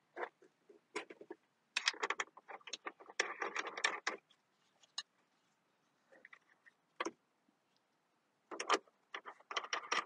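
Irregular clicks and rattles of hard plastic and metal parts being handled while a replacement side mirror and its wiring are fitted into a car door, in two busy bursts, around two to four seconds in and again near the end, with quieter single clicks between.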